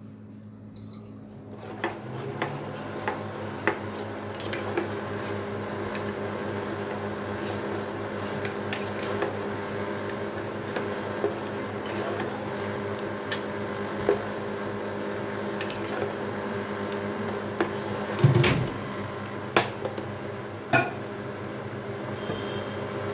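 Metal utensil clinking and scraping against a cooking pot, with scattered sharp knocks and a louder clatter a few seconds from the end, over a steady appliance hum and a hiss.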